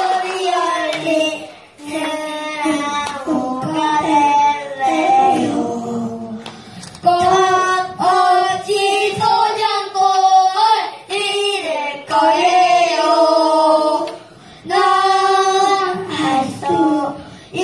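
Young boys singing a tune together into microphones over the stage sound system, in phrases of held notes with short breaks between them.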